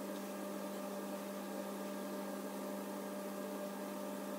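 A steady machine hum with a low drone and a fainter higher tone over a light hiss.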